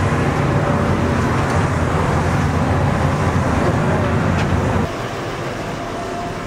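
Steady loud rumble of airport apron noise beside a parked airliner, with the machinery and vehicles of the tarmac. About five seconds in it cuts off abruptly to the quieter room tone of an indoor hall.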